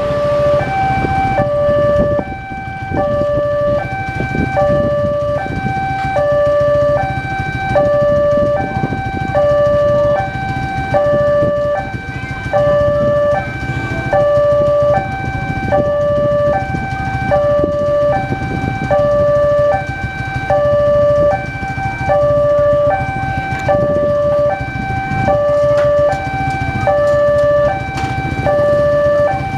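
Railway level-crossing alarm: an electronic two-tone warning from the crossing's horn loudspeaker, alternating a higher and a lower tone about every two-thirds of a second, steady and unbroken. It sounds while the barrier is down for an approaching train, over a low rumble of idling motorcycles waiting at the barrier.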